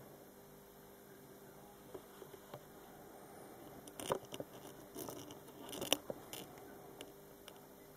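Faint handling noise: a few soft clicks and rustles over a low steady hum. They come in two small clusters around the middle, the loudest just before the end of the second.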